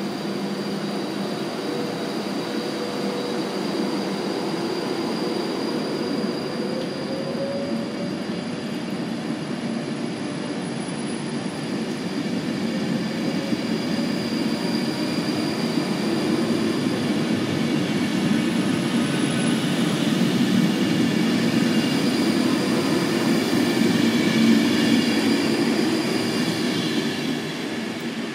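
Virgin Trains Class 390 Pendolino electric train moving past at close range, its coaches rumbling along the rails with a faint electric whine that rises in pitch about seven seconds in. It grows louder and then fades near the end as the rear cab goes by.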